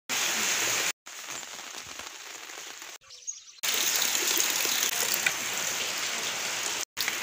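Heavy rain falling on tree leaves: a steady, dense hiss of rain broken by short cuts to silence, fainter for a couple of seconds around the middle.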